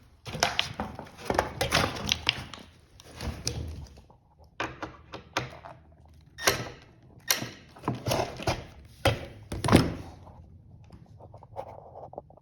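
Irregular knocks and clatter of flat-pack cabinet assembly: hardware and plywood panels being handled while the connecting posts are screwed into their pre-drilled holes. The knocks die down to light handling noise near the end.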